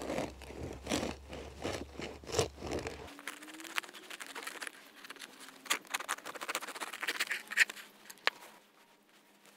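A bread knife sawing through the crunchy crust of a freshly baked durum-wheat sourdough loaf, the crust crackling in rapid sharp crunches. The cutting comes in two spells, the second ending about eight seconds in.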